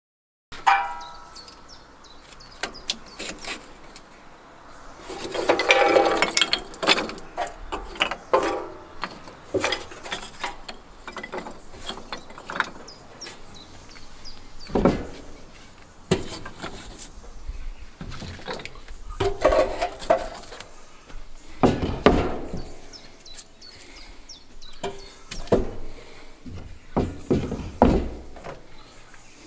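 Kindling sticks and split logs being laid into the hearth of a wood-fired oven: irregular wooden clatters and knocks, with several louder bouts as pieces are set down.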